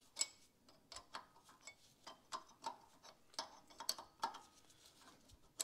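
About a dozen faint, irregular metallic clicks and clinks from handling mounting bolts and tools while a replacement hydraulic gear pump is bolted onto a log splitter's engine.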